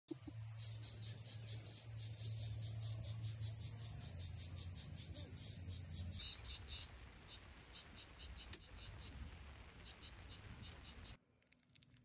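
A chorus of insects in tropical forest: a steady high buzz with a fast pulsing beat. It drops in level about halfway through, a single sharp click comes partway on, and it cuts off suddenly near the end.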